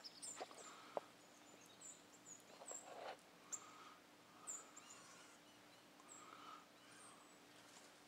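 Faint, high, short chirps from a flock of small songbirds feeding, coming every second or so, with a couple of sharp ticks about a second in and a faint steady low hum underneath.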